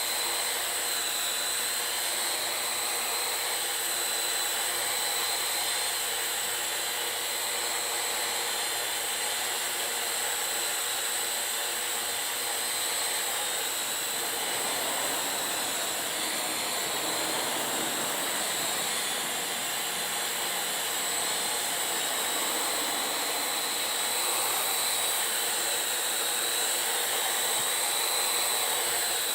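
Parrot AR.Drone 2.0 quadcopter's electric motors and propellers whirring steadily in flight, with a high whine in the rushing sound; the tone of the whir slowly sweeps up and down.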